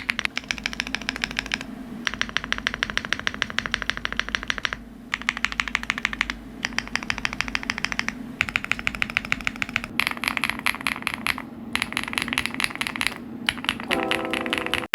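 Fast typing on computer keyboards: rapid clicky keystrokes in runs of a second or three, separated by short gaps where the tone of the clicks changes as different keyboards are cut in. A brief low tone sounds near the end.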